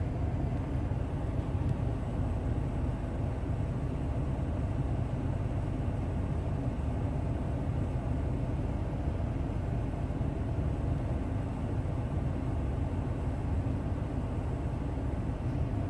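Steady low engine rumble at idle, heard inside a vehicle's closed cabin.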